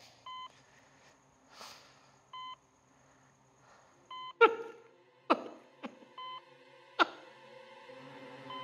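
A short electronic beep repeating about every two seconds. Four sharp, quick falling swoops cut in between about four and seven seconds in; the first is the loudest.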